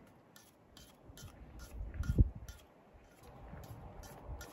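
Metal spoon stirring and scraping food in a frying pan, clicking against the pan about three to four times a second, with a dull thump about two seconds in.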